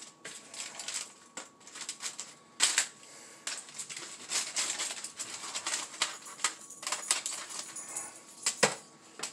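A spatula scraping and prying chicken wings off foil in a foil-lined baking tray: a quick, irregular run of scrapes, clicks and foil crinkles, with a sharper knock near the middle and another near the end. The wings are sticking to aluminium foil that was not sprayed.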